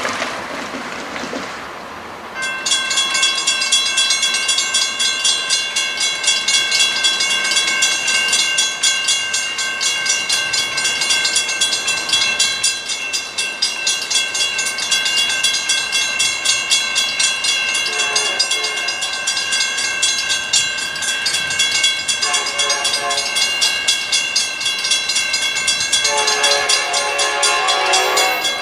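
Grade crossing warning bell starts ringing about two seconds in, a fast steady clanging. Over it an approaching train's horn sounds three times in the second half, the last blast the longest: the train is whistling for the crossing.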